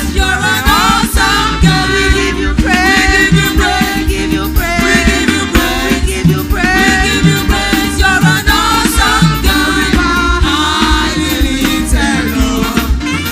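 Gospel worship music: singing voices over a band with bass and a steady beat.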